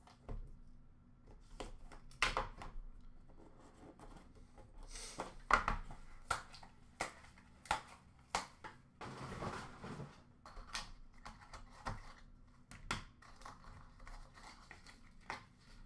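Hands handling a trading-card box and its packaging: scattered clicks and taps of cardboard and plastic, with rustling and a longer rustle about nine seconds in.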